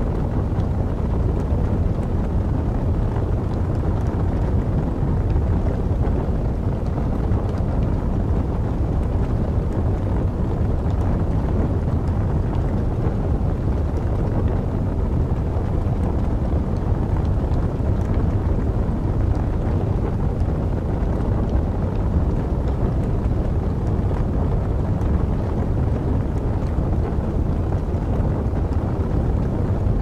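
Steady low rumble of wind, with faint, scattered crackles from burning wood logs over it.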